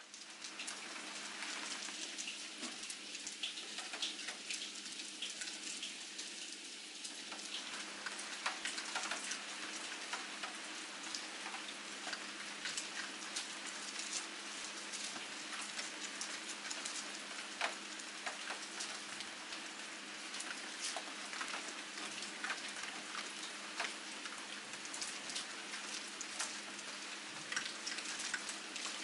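Steady rain falling, with many sharp individual drops ticking.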